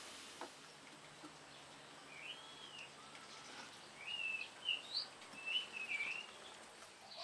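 A bird calling: a handful of short whistled notes that rise and fall, between about two and six seconds in, over a faint steady hiss.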